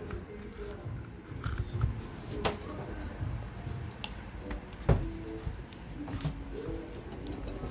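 Angle grinder parts being handled and pushed together during reassembly: rustling and small taps, with two sharp knocks about two and a half and five seconds in.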